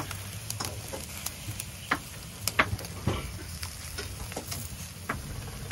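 Fish and meat grilling over a charcoal fire, sizzling and crackling with scattered sharp pops from the coals.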